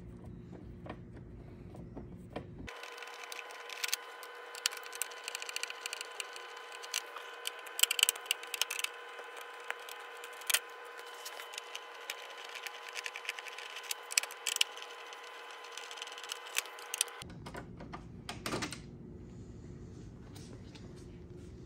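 Irregular light metallic clicks and taps of a T-handle Torx driver working T27 bolts out of a motorcycle's plastic fairing. Most of the clicks come in the middle stretch, over a faint steady hum.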